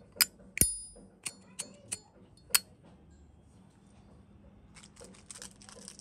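Zippo lighter's lid flicked open and snapped shut, six sharp metallic clicks in the first two and a half seconds, the loudest about half a second in with a bright ringing ping; a nice, natural sound. A faint rustle starts near the end.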